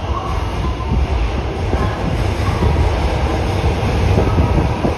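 Osaka Metro Midosuji Line subway train running past the platform: a loud low rumble with rattling and clicking from the wheels and cars.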